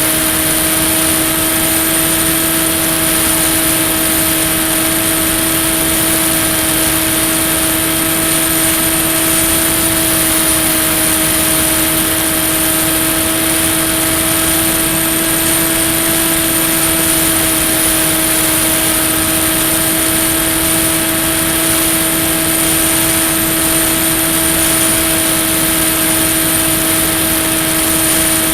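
Electric motor and propeller of a Ranger EX FPV model plane holding a steady cruise, heard from on board as a constant hum with a high whine, its pitch barely drifting.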